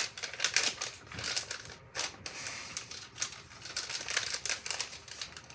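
Paper wrapping crinkling and crackling as a package is handled and unwrapped by hand, in quick irregular clusters of crackles.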